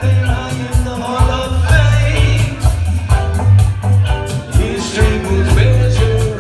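Live reggae band playing loudly: a heavy pulsing bass line under a steady hi-hat beat, with a sung lead vocal over it.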